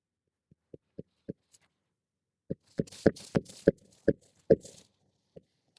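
A series of short knocks and scuffs on an asphalt shingle roof: three or four light taps, then about eight sharper knocks with scraping between them.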